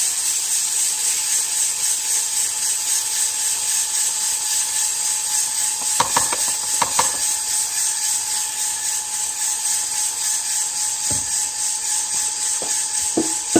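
Aillio Bullet drum coffee roaster running just after being charged with 2 pounds of green beans: the beans tumble and rasp steadily in the turning drum over a steady whine from the machine. A few sharp clicks come about six to seven seconds in, and a few softer ones near the end.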